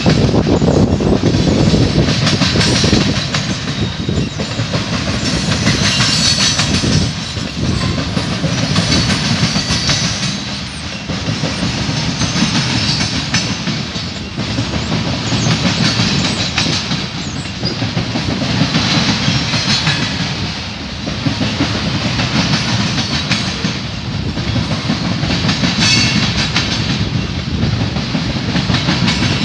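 CSX covered hopper cars of a freight train rolling past close by: a steady rumble of steel wheels on rail, with quick clicks as the wheels cross rail joints, the sound rising and falling in waves every three or four seconds.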